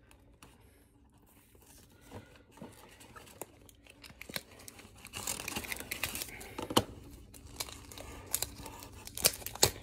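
Plastic wrapper crinkling and tearing as it is worked open by hand to get at a hockey trading card, with a few sharp snaps. It starts faintly about two seconds in and gets louder about halfway through.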